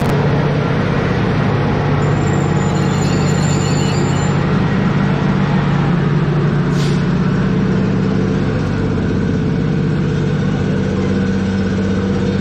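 CFR electric locomotive standing at the platform with its equipment running: a loud, steady, low hum from its transformer and cooling blowers. A short sharp click comes about seven seconds in.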